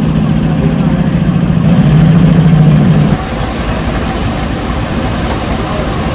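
An engine idling with a steady hum that grows louder and then cuts off abruptly about three seconds in, leaving a steady noisy rumble and hiss.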